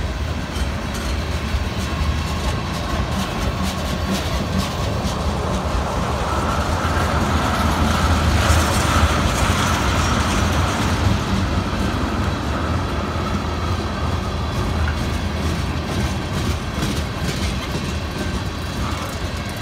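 Freight cars rolling slowly past on wet rail with their brakes applied: a steady rumble of steel wheels with light clicking over rail joints, a little louder around the middle.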